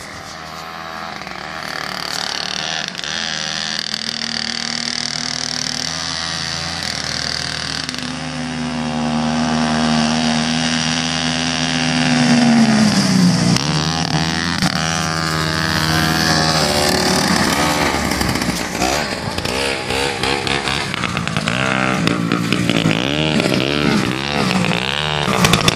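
1969 Sno Pony snowmobile's small two-stroke engine running, growing louder as the sled rides up close. The pitch holds steady, then swings up and down as the throttle is worked again and again in the last several seconds.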